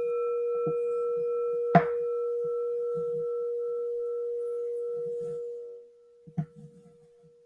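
Singing bowl ringing with one steady, pure tone and fainter higher overtones; it is struck again about two seconds in, and the ring fades away by about six seconds in. Faint soft knocks sound underneath.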